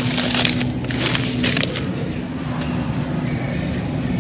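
A plastic bag of frozen cut green beans crinkling and crunching as it is grabbed and handled, in two bursts within the first two seconds, over a steady low hum.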